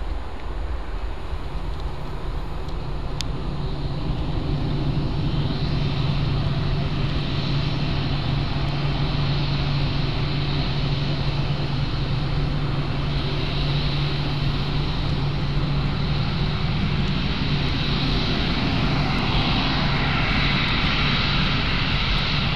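Boeing 737 airliner's jet engines running as it taxis and turns on the runway: a steady low hum with a high whine. Both grow louder from about four seconds in, and the whine is strongest near the end.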